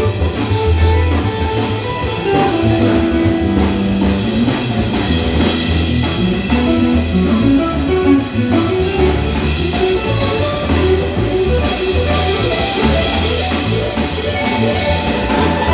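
Instrumental music from a trio: guitar playing a melodic line over low bass notes and drums.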